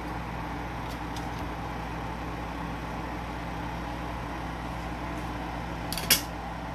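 Spiced broth boiling in a large electric pot: a steady bubbling hiss over a low hum, with a short sharp click near the end.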